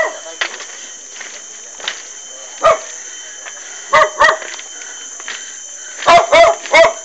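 A dog barking in short sharp barks: once, then twice, then three in quick succession near the end.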